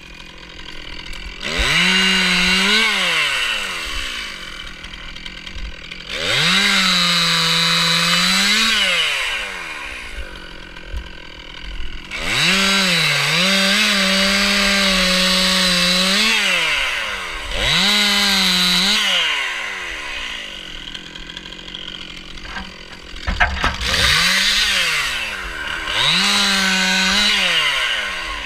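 Stihl MS 261 two-stroke chainsaw revved to full throttle in about six bursts of two to four seconds, each held at a high pitch that sags slightly as the chain cuts wood, then dropping back towards idle between bursts. A short knock is heard about two-thirds of the way through.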